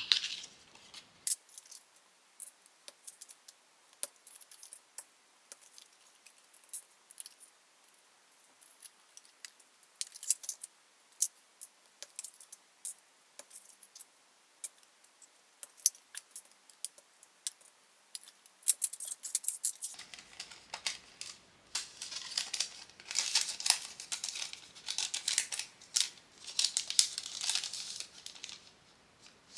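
Light clicks and taps of polymer-clay pins and their metal pin backs being fastened onto paper backing cards. About two-thirds of the way through, this gives way to louder, continuous crinkling of a clear plastic sleeve as a carded set of pins is slid into it.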